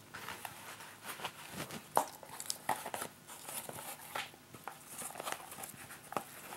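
Thin nylon straps and the buckle of a Petzl Sirocco climbing helmet being handled: faint rustling with scattered small clicks.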